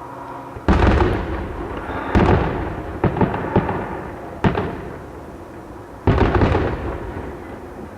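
Fireworks going off: three big booms, one near the start, one about two seconds in and one about six seconds in, each fading in a long rumbling tail. Between them come a few smaller, sharper pops and a single crack.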